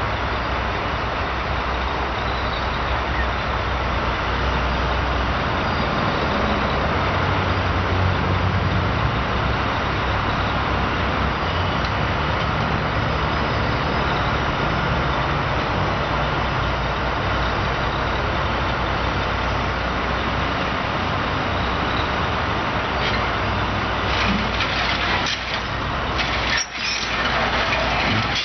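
Heavy diesel engine running steadily with a low drone, and a few knocks and clatter near the end.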